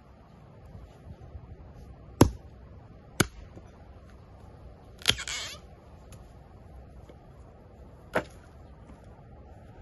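Dry birch branches being chopped and broken up for firewood: four sharp cracks spaced a second or more apart, the third followed by a short crackle of splintering wood and twigs.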